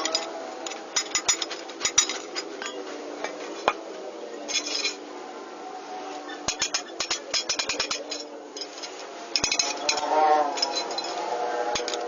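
Hammer tapping on the steel sheet-metal panel of a pickup bed, manual panel beating to straighten crash damage. The taps come in quick runs of several a second, broken by short pauses.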